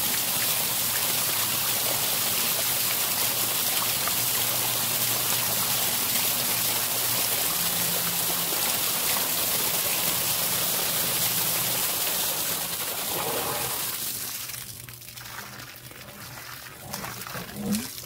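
Submersible sump pump, a Zoeller M98, pumping a full basin out through a 1.5-inch pipe: a steady rush of water with a low motor hum under it. About 14 seconds in the rush drops off sharply as the basin empties, leaving a quieter, uneven trickle.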